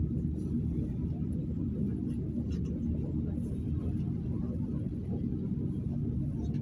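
PAZ 32054 bus engine running steadily at low revs, an even low rumble heard from inside the passenger cabin.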